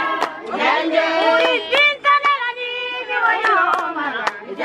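Voices singing held, gliding notes, with sharp hand claps at irregular intervals.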